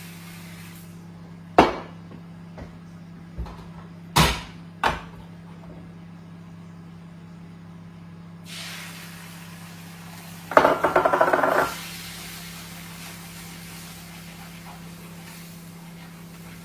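A frying pan clunking onto the stovetop, three sharp knocks, over a steady low hum. About eight seconds in a hiss begins and keeps going, with a brief rattling clatter of the pan on the stove a couple of seconds later.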